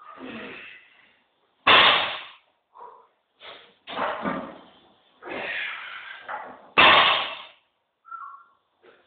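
A loaded barbell with 200 kg of plates is set down on the floor between deadlift reps. There are two loud impacts about five seconds apart, each fading out over about half a second, with softer noises in between.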